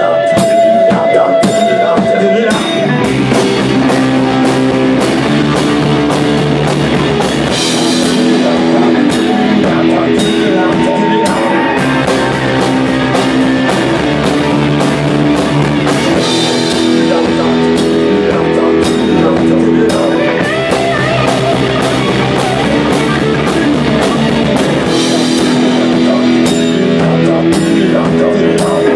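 A rock band playing live: a drum kit alone at first, then electric guitars and bass come in with full chords about three seconds in, over a steady drum beat.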